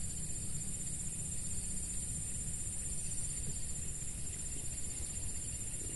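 Steady, high-pitched insect chorus over a low, even rumble.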